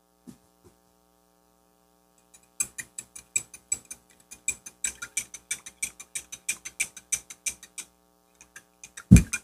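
A spoon clinking rapidly against the inside of a drinking glass as salt is stirred into water, about four quick taps a second for some five seconds. A single dull thump comes near the end.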